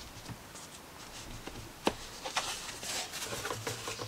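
Faint rustling and handling of cardboard packaging and paper sheets as the foam cover is lifted out of a product box, with light taps and one sharper click about two seconds in.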